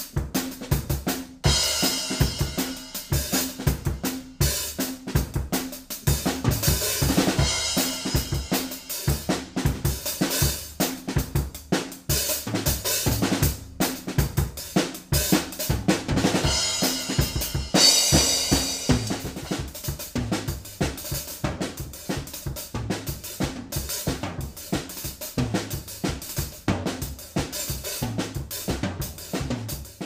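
Acoustic drum kit played loud: kick, snare and hi-hat in a fast, busy beat with Zildjian ZBT cymbal crashes every so often. It is recorded close on a Blue Mikey Digital stereo condenser mic at its high-gain setting.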